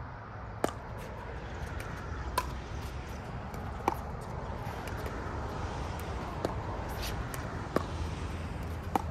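A pickleball rally: hard paddles striking the plastic ball, a sharp pop every one to two seconds, six or so in all, over a steady low rumble.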